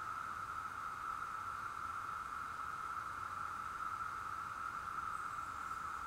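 Chorus of 17-year periodical cicadas singing in the treetops: one steady, unbroken drone.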